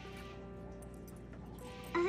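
Soft background music with held notes, one new note coming in late.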